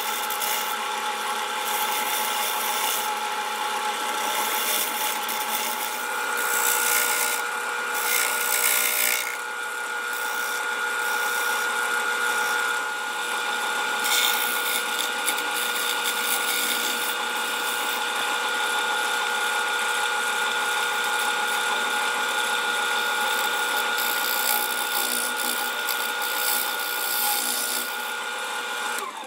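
Grizzly G0462 variable-speed wood lathe running with a steady whine. Hand-held sandpaper hisses against the spinning aromatic cedar bowl, louder at times as the pressure changes.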